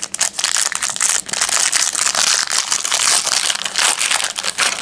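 Foil wrapper of a 2003 Fleer Genuine Insider trading card pack being torn open and peeled back by hand: a dense run of crinkling and crackling that stops as the pack comes open.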